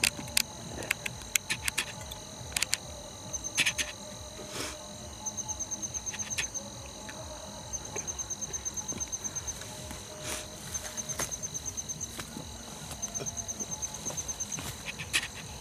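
Night insect chorus: a steady high-pitched insect whine with repeated trills of rapid cricket chirps, about a dozen pulses a second, each trill lasting a second or two. A few sharp clicks and knocks come through in the first five seconds and again around ten seconds in.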